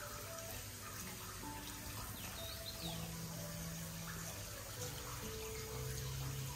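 Water running and splashing into a stone foot-wash basin as feet are rinsed with a hand shower, with faint soft music underneath.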